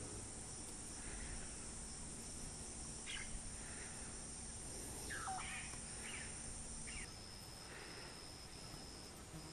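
Tropical lakeside ambience: a steady high insect chorus under a light hiss, with a few short bird calls over it. About seven seconds in, the insect sound changes to a high tone that comes in regular pulses.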